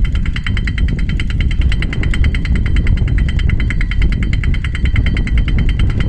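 Pile driver's hammer pounding rapidly and evenly, about ten blows a second, over the steady low running of the rig's engine.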